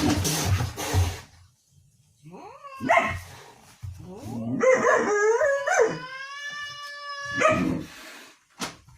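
A pet animal giving drawn-out howling calls: a short call, then a long one that wavers and then holds one pitch for about three seconds, with a few short noisy bursts around them.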